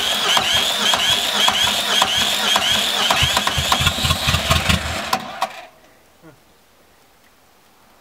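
Starter motor cranking a two-cylinder diesel made from half of a 1.6-litre car diesel, whirring with a rhythmic rise about three times a second as each compression comes round. The engine begins to fire with uneven low knocks near the end but does not keep running, and the sound stops about five and a half seconds in.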